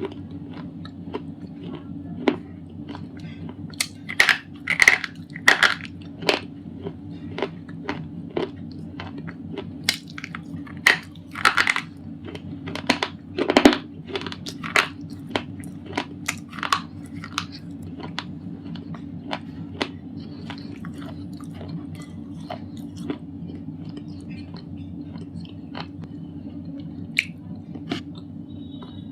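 Thick white slate pencils being bitten and chewed: a run of sharp, crisp crunches, crowded together through the first half and sparser and softer later on.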